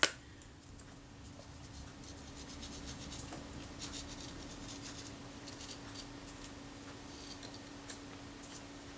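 Faint light scratching and small ticks from handling a tube of contact adhesive and applying it to a leatherette piece, with one sharp click at the start. A steady low hum runs underneath.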